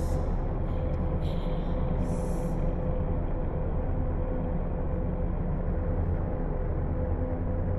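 Low, steady rumbling drone of a horror ambience track, with a faint held hum tone in it. Two short breathy hisses come in the first three seconds.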